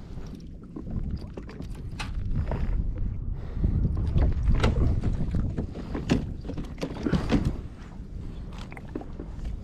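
Wind buffeting the microphone over a steady low rumble of sea water around a plastic kayak, with scattered small knocks and clicks from the hull and fishing gear.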